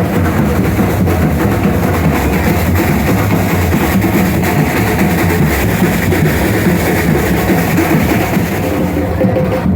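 Loud carnival parade music with a strong drum beat and heavy bass, playing without a break.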